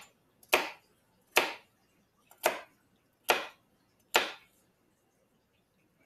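A kitchen knife slicing baby carrots into rounds on a cutting board: five sharp chops, about one a second, each the blade cutting through the carrot and knocking on the board.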